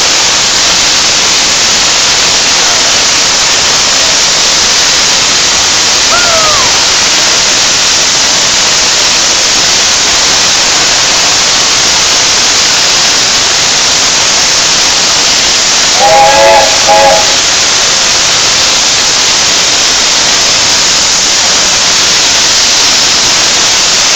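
BR Standard Class 8 Pacific 71000 Duke of Gloucester standing in the platform, venting steam with a loud, steady hiss. About 16 seconds in, its chime whistle sounds two short blasts, the second briefer than the first.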